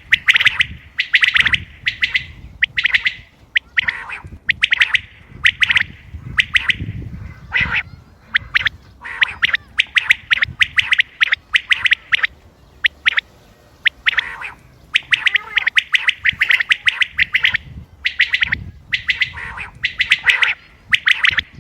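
Common quail calling: clusters of short, sharp call notes in quick succession, repeated again and again with brief gaps.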